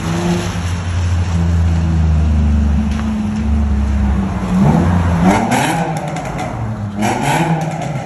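Infiniti G35's V6 running through a Spec D Racing cat-back exhaust: a steady low drone, then revving up twice, once about halfway and again near the end.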